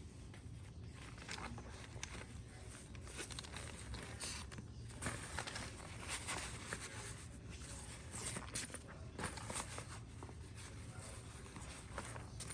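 Irregular rustling and light taps of things being handled, growing busier about halfway through, over a steady low hum.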